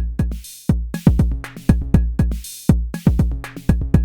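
Arturia DrumBrute Impact analog drum machine playing a looped beat. Punchy kick and drum strokes drop in pitch, and a bright cymbal burst comes about once a second.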